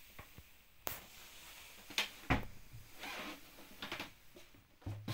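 Scattered knocks and a few sharp clicks from someone moving about inside a boat's small wooden cabin, loudest a knock with a low thud about two seconds in and a low thump near the end, with soft rustling between.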